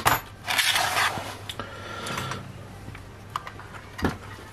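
Light workbench handling noises: a short rubbing hiss about half a second in, a few small clicks, and a dull knock near the end, as tools and parts are handled during soldering work on an amplifier's sockets.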